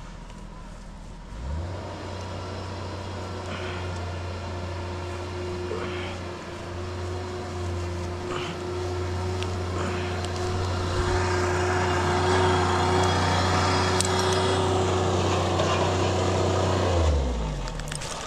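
An engine starts about a second and a half in and runs steadily with a low hum, growing louder and rougher in the second half, then winds down in pitch and stops about a second before the end.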